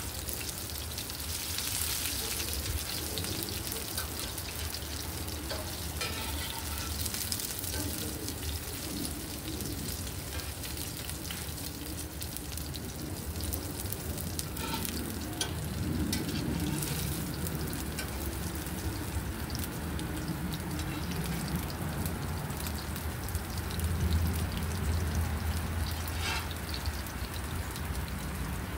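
Shrimp fritters frying in olive oil in a cast-iron skillet: a steady sizzle with scattered small pops and crackles.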